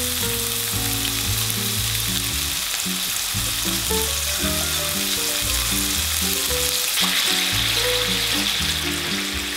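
Chicken tsukune patties sizzling steadily as they fry in oil in a nonstick frying pan. About seven seconds in the sizzle gets brighter and louder as the soy sauce seasoning is poured into the hot pan. Soft background music plays underneath.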